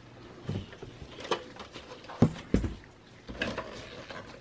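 Hands working the power connectors and cables inside a desktop computer case: a few light plastic clicks and knocks, with a duller thump a little past halfway.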